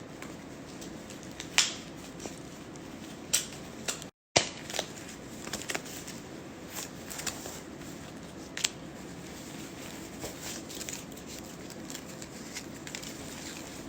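Packaging being handled during an unboxing: crinkling and rustling with scattered sharp clicks and crackles, cut by a brief silent gap about four seconds in.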